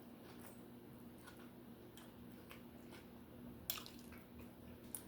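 Faint wet mouth clicks and smacks of someone chewing a cheeseburger: a handful of short clicks, the sharpest about three and a half seconds in, over a low steady hum.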